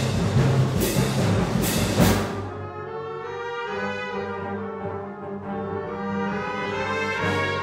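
Concert wind band playing: a loud full passage with several sharp percussion strikes for about two seconds, then a drop to softer held brass chords, with another strike near the end.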